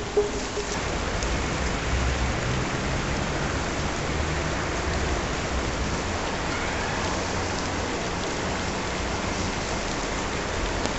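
Steady rain falling, an even hiss throughout, with two brief knocks at the very start.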